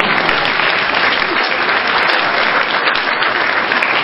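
Audience applause: dense, steady clapping at an even level.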